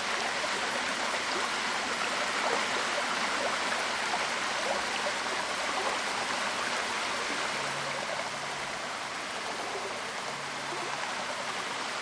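Waterfall: water falling and splashing in a steady, dense rush with many small splashes.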